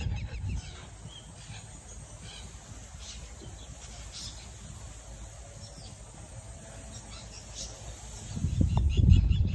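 Quiet rural outdoor ambience with faint, scattered bird chirps and insects. About eight and a half seconds in, a loud low rumble rises and continues.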